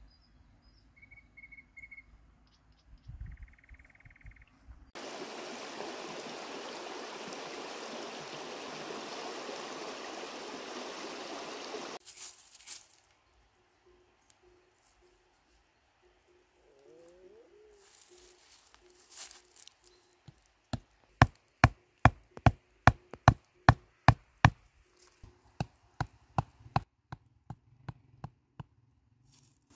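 A wooden stake being driven into the ground with a stone: a run of sharp knocks, about three a second, then a weaker second run. Earlier, a steady rushing hiss lasts about seven seconds.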